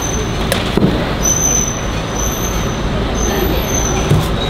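Steady road traffic noise with background voices. A thin high whine lasts about a second, starting about a second in, and there are a few light clicks.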